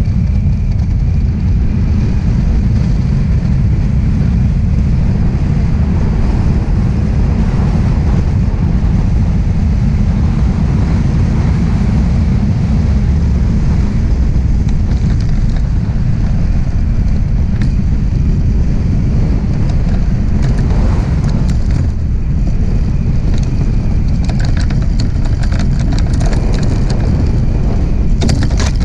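Wind rushing over the microphone and a DN iceboat's steel runners running over the ice at speed, a loud, steady low rush. Over the last few seconds a crackling scrape joins it as the runners cross rough, frosted ice.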